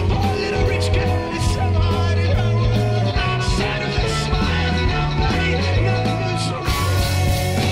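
Psychedelic rock recording playing: a full band with a heavy bass line and drums with regular cymbal hits.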